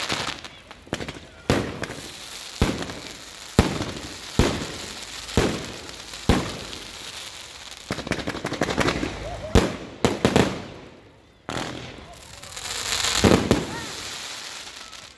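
Fireworks going off: a string of sharp bangs about one a second, then a spell of crackling, and a longer rushing burst near the end.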